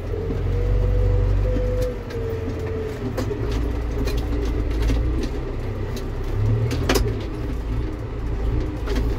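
John Deere tractor engine running while the tractor drives across the field, heard from inside the cab: a heavy low rumble with a held tone that wavers and drops after about two seconds. A few sharp knocks or rattles come through, the clearest about seven seconds in.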